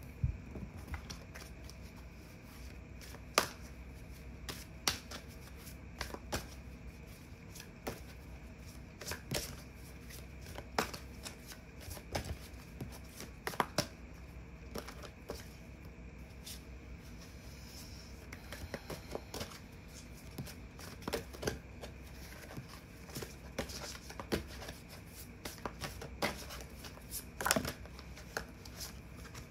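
A tarot deck being shuffled by hand: an irregular run of soft card slaps and flicks, with sharper snaps every second or two.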